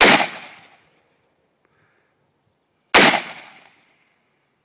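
Two single shots from an AR-15 rifle, about three seconds apart, each sharp crack trailing off over under a second.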